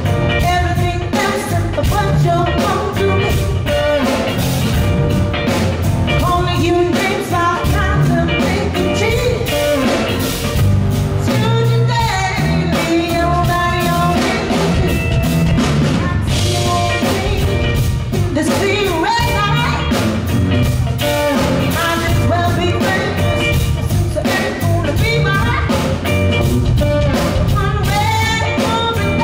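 Live band music: a woman singing over electric guitar and drum kit, with a steady beat.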